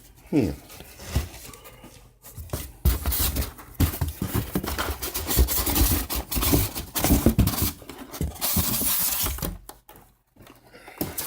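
Rummaging through the packing in a cardboard box: irregular rustling and crinkling of packing material, with scattered light knocks and scrapes.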